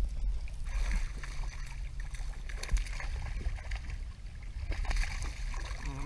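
Water splashing and lapping beside a small boat, over a steady low rumble.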